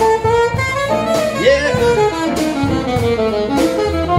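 Live saxophone playing a jazzy melody of held notes with a slide in pitch midway, over a steadily pulsing double bass line.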